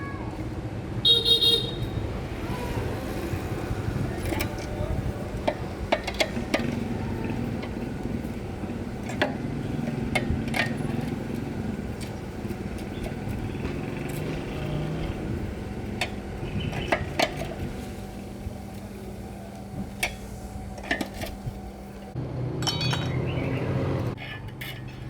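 Street traffic with a vehicle horn honking briefly about a second in, over a steady low hum, with scattered clicks and knocks throughout.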